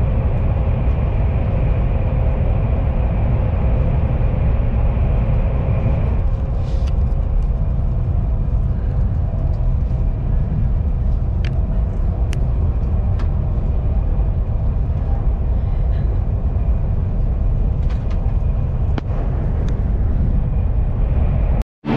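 Cabin noise of a KTX high-speed train running at speed: a steady low rumble with a few faint clicks, cutting off abruptly near the end.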